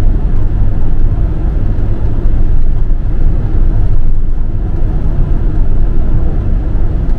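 Steady cabin noise of a motorhome driving at motorway speed: engine drone mixed with tyre and wind rumble, heavy in the low end.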